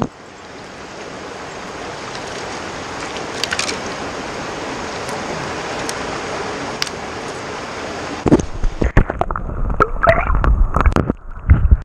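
Steady rush of creek water, with a few faint clicks. About eight seconds in come irregular splashes and knocks in the water, and the sound turns muffled as the camera goes under the surface by a brown trout.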